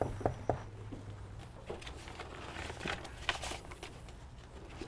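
Light handling sounds at a wooden workbench: a quick run of small clicks and taps at the start, then scattered knocks, over a faint steady low hum.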